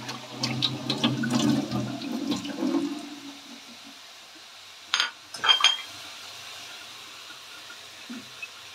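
Water running for about three seconds, like a tap, then two sharp clatters about five seconds in.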